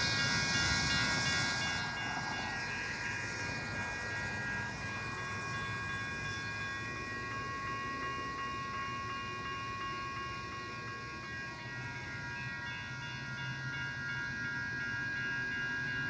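Railroad grade-crossing bells ringing without a break with the crossing gates down, over a low rumble, as a Metra commuter train approaches. A car passes in the first two seconds.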